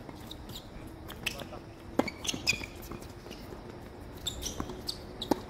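Tennis balls being struck and bouncing on a hard court: a few separate sharp knocks, the loudest about two seconds in and another near the end, with a few short high squeaks in between.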